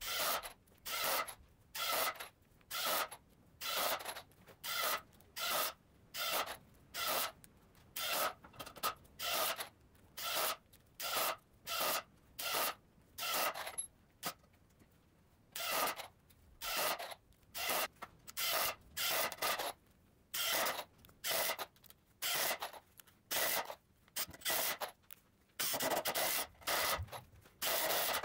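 Makita cordless impact driver hammering in repeated short bursts of about half a second, roughly one a second, as it drives Spax wood screws into softwood with a Milwaukee Shockwave Torx 20 bit. The bursts stop for about two seconds midway, then come back longer, with one run of about two seconds near the end.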